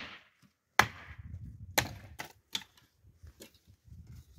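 Sharp knocks at uneven intervals, about five of them, the strongest about a second in and just under two seconds in, the later ones fainter.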